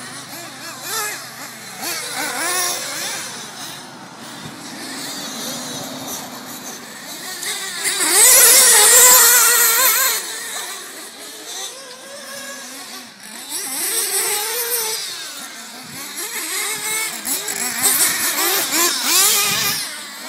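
The small gas- and nitro-powered engines of several RC race cars whining and revving as they race past, pitch rising and falling, loudest as a pack goes by about eight to ten seconds in and again near the end.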